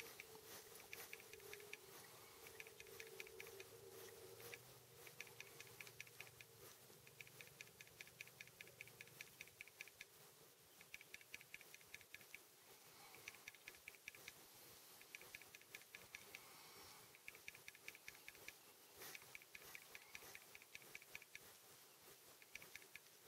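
Faint rapid ticking in runs of a second or two with short pauses between, over near silence; a faint steady hum sits under the first few seconds.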